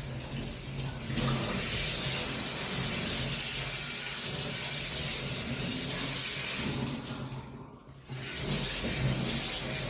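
Kitchen faucet running into a stainless steel sink as something is rinsed under the stream. The water breaks off briefly about seven and a half seconds in, then runs again.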